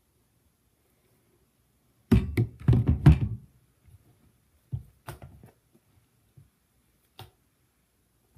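Quiet, then a quick cluster of dull thumps and knocks about two seconds in, followed by a few single knocks.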